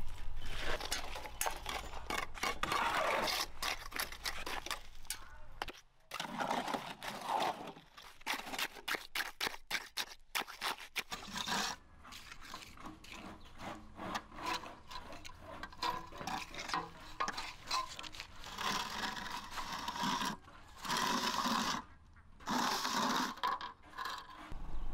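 Steel trowels scraping and smoothing wet cement mortar over bricks and rebar, in many short strokes with small knocks, and a few longer scraping passes near the end.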